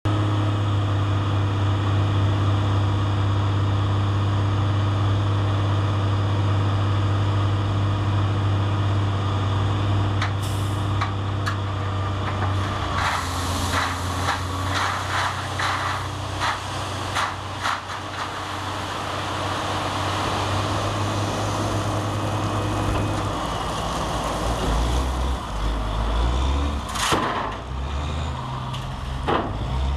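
Diesel semi truck running steadily as its end-dump trailer tips, with gravel rattling and pouring out over the tailgate from about a third of the way in. About three quarters of the way through, the steady engine hum drops and gives way to an uneven low rumble.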